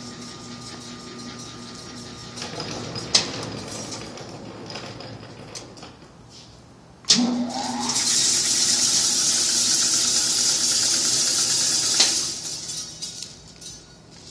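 Hobart 60-quart mixer running with its wire whip in an empty bowl: a steady hum with a click about three seconds in, then a sharp click and a rising whine about seven seconds in. A loud rushing whir follows for about four seconds, ending with another click and dying away.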